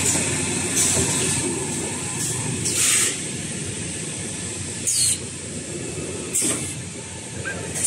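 An automatic toilet paper rewinder and converting line running: a steady machine and conveyor din, with short hissing bursts about every one and a half to two seconds.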